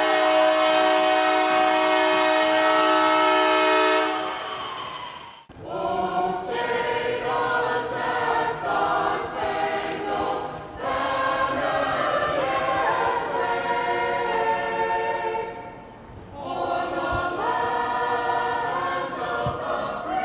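Choral singing: a held chord that fades out about five seconds in, then voices singing a moving melodic passage.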